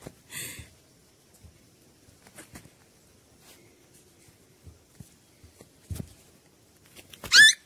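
Puppies moving about on dirt ground: faint scuffs, taps and a brief rustle. Near the end a puppy gives one short, high yelp that rises in pitch.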